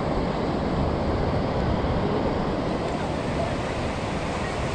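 Steady rush of ocean surf washing up the beach, with wind rumbling on the microphone.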